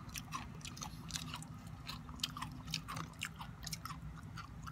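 Someone chewing a crisp dried jackfruit chip close to the microphone, with irregular sharp crunches several times a second.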